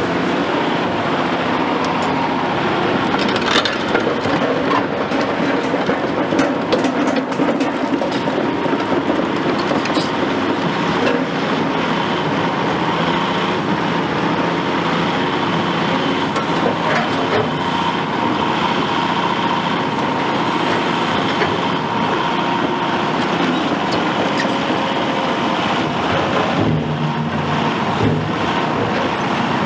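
Caterpillar 352F XE tracked excavator travelling, its diesel engine running steadily while the steel track chains clatter and knock unevenly, with a steady high tone over the noise.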